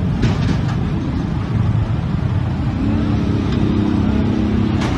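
Dense street traffic of motorcycles and motor tricycles running close by. One small engine's steady hum stands out from about three seconds in, and a single sharp click comes just before the end.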